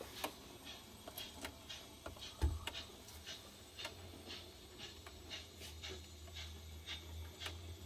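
Model railway turntable turning with a small diesel locomotive on its bridge: irregular light clicking from the bridge mechanism, about two to three clicks a second. About two and a half seconds in there is a knock, and a low steady hum runs from then on.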